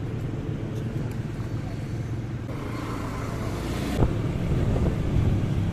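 Motorcycle riding through city traffic: steady engine and road rumble, with a rise of rushing hiss a few seconds in and a single sharp knock about four seconds in.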